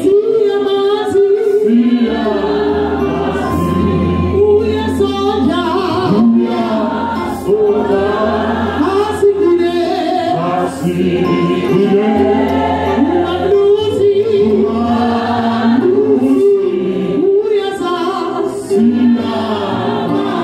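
A church congregation singing a gospel chorus, led by a man singing into a microphone, over a steady low bass.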